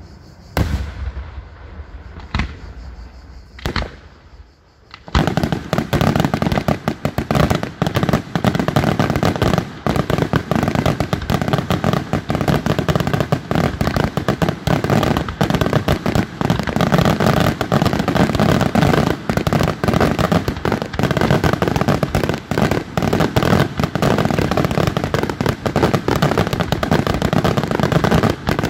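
Daytime fireworks bursting: a few separate bangs, then from about five seconds in a dense, unbroken barrage of rapid cracking reports from many shells bursting at once.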